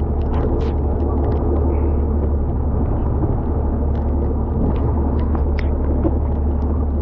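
Boat engine running steadily with a low hum, with scattered light taps over it.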